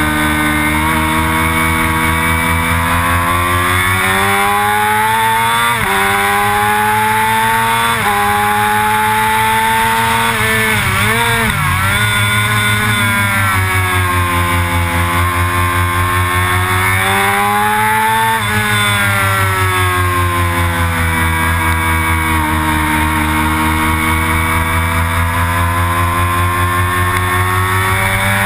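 Motorcycle engine pulling hard on track. The revs climb and drop sharply at upshifts about 4, 6 and 8 seconds in, with the throttle wavering around the middle. After one more upshift past halfway the revs sink slowly, then climb again near the end.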